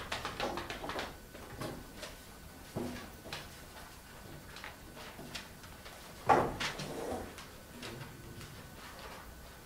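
Sheets of paper rustling and being shuffled on a desk, with scattered light knocks and one louder knock about six seconds in.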